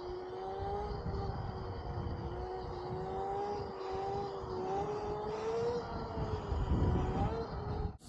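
Electric pit bike's ETM-kit hub motor whining while riding, its pitch drifting up and down with the throttle. Wind rumbles on the microphone underneath and swells briefly near the end.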